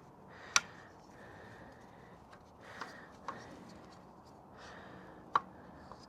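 Hands working loose parts of a dirt bike's radiator guard: a sharp click about half a second in and another near the end, with a couple of softer knocks between.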